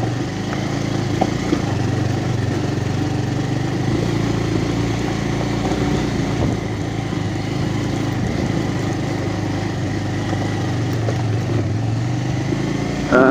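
Motorcycle engine running steadily as the bike rides over a rough stony track, with a few small knocks from the bumpy ride.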